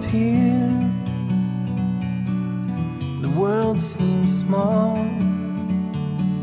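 Background music: a song with acoustic guitar and a sung melody.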